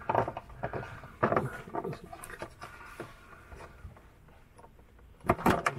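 Scraping, rubbing and light clicking of hands working fuel-line fittings and a connector under a car, with a short burst of louder clatter about five seconds in.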